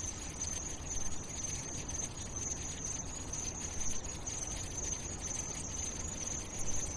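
A steady high-pitched tone or trill held unbroken over a low rumble and faint crackle, with no music or singing.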